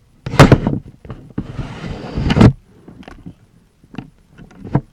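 Loud knocks and a second-long rustling scrape, followed by a few lighter clicks.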